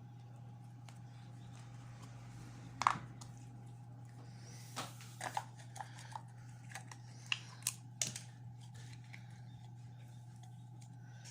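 Slime being handled, giving scattered small clicks and pops, over a steady low hum.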